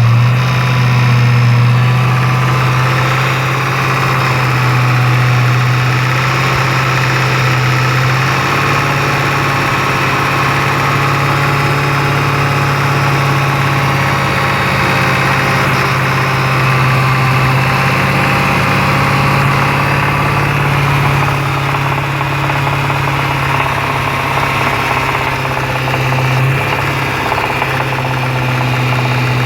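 Jaguar XFR's supercharged 5.0 V8 running steadily at idle with its supercharger disconnected, with a knocking noise from the engine that is heard most around twenty-odd seconds in. The dealer blames the supercharger; the knock came on about 25 miles after a major service.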